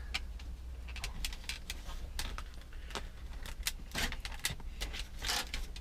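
Hard plastic parts of a caravan window blind clicking and rattling as they are handled and pushed into place, in irregular sharp clicks, over a low steady hum.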